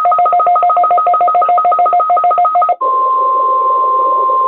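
Weather radio alert tones: a rapidly pulsing two-tone beep, about eight beeps a second, switching near three seconds in to a single steady tone of about 1 kHz over a hiss. The steady tone is the National Weather Service weather radio warning alarm tone, sent as a test.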